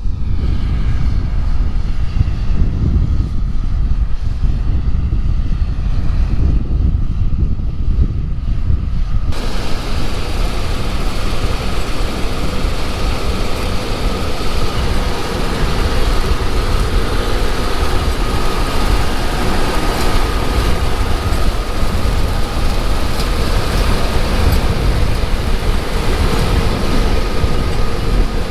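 Combine harvester running at work, a steady mechanical din. About nine seconds in the sound changes abruptly from a low rumble to a brighter, hissier machine noise with a steady hum.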